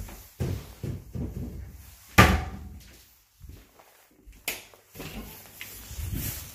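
Doors being handled: a run of knocks and thumps, the loudest a slam about two seconds in, then a sharp click about four and a half seconds in.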